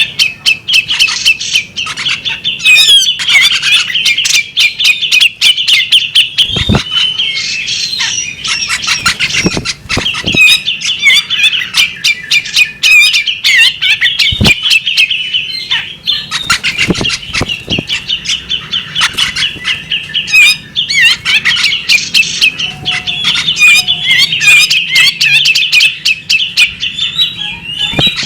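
Female magpie robin singing without pause: a fast, busy stream of chattering, twittering notes. A few thumps sound under the song.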